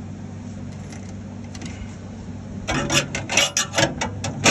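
Steady low hum, then about two and a half seconds in a quick, irregular run of loud metallic knocks and rattles as the cut inner wheel-well sheet metal is worked loose.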